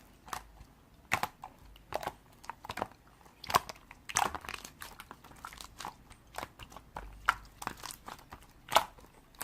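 A run of irregular, crunchy clicks and taps close to the microphone, a few a second with short pauses between.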